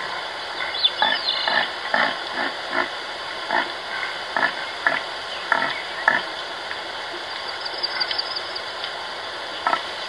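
A herd of red deer moving through snow, with short low sounds about once or twice a second for the first six seconds over a steady hiss.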